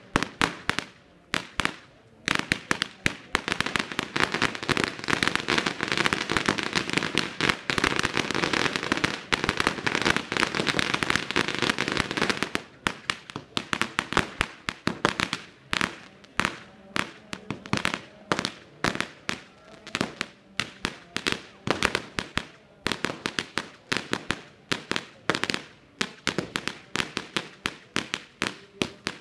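A long string of firecrackers going off in rapid bangs, a dense, near-continuous rattle for the first several seconds that thins out about halfway through into separate bangs, several a second.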